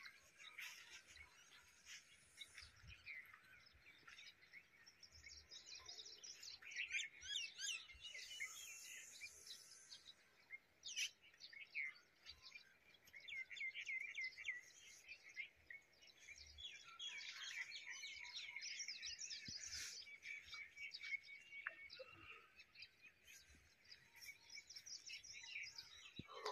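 Faint chirping and twittering of several small birds, many short quick calls overlapping, in busier patches now and then.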